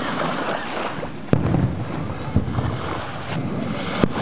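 Surf washing on the shore in a steady hiss, with the sharp bang of a distant fireworks shell about a second in, trailing off in a low rumble, and another bang near the end.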